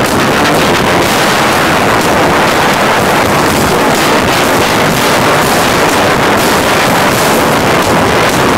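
Live rock band playing loud, electric guitar and drums through the PA, recorded right beside the main speaker so that the sound is overloaded and distorted into a steady, dense wash of noise.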